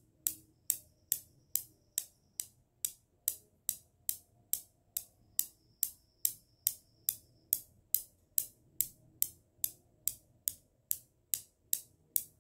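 A ticking sound effect: sharp, evenly spaced ticks, about two and a half a second, like a clock's tick.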